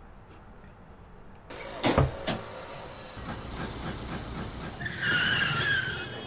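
Car sound effects: road noise comes in after a quiet second and a half, with a couple of thuds, then tyres squeal for about a second near the end, as a car skids.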